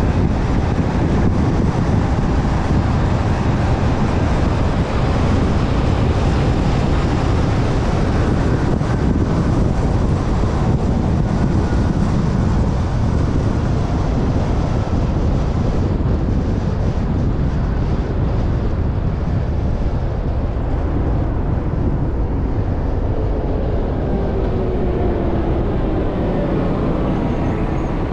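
Steady road noise from a car driving along a city road: tyre rumble and wind noise. A faint engine tone comes in near the end.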